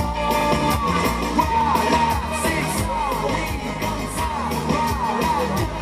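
Dance music with a singing voice over a steady beat.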